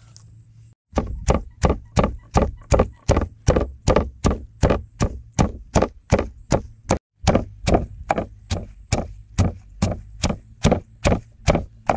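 Wooden pestle pounding sliced lemongrass, shallots, kaffir lime leaves and chilies in a wooden mortar: steady thuds about three a second, starting about a second in, with one brief break past the middle.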